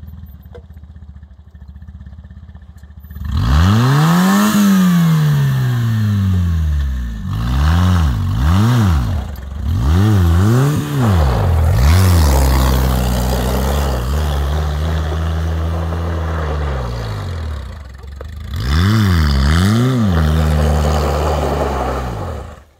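Off-road buggy's engine idling quietly, then revved hard about three seconds in: a series of sharp rises and falls in pitch, a longer held stretch in the middle, two more quick blips near the end, then it cuts off suddenly.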